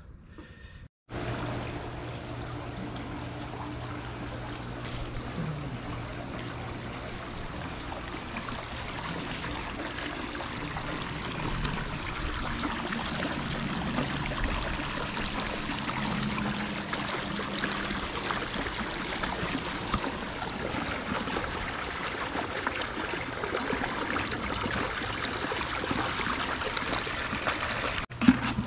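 Pool return jet shooting a stream of water into the pool, a steady splashing trickle with a steady low hum underneath. Water is flowing again through the newly replaced return line.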